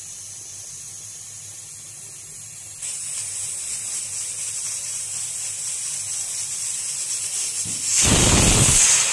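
Prestige aluminium pressure cooker hissing steam at its weight valve, the hiss getting louder about three seconds in. Near the end it lets out a loud blast of steam, the whistle that signals the cooker is up to pressure.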